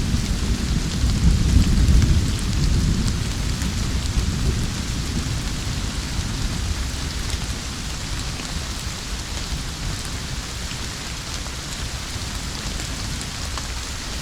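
Steady heavy rain falling, with a deep rumble of thunder in the first few seconds that dies away, leaving only the rain.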